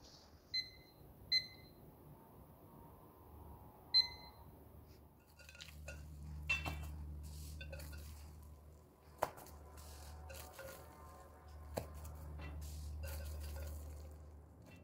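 Hands stretching and folding wet, sticky dough in a glass bowl: soft squelching and handling noise with a few sharper knocks against the glass. Before that, three short ringing ticks in the first four seconds.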